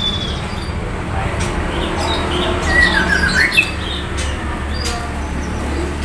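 Caged songbirds chirping and squawking in short calls, busiest in the middle, with a few sharp clicks over a steady low hum.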